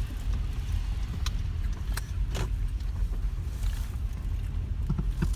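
A car running, a steady low rumble, with a few light clicks.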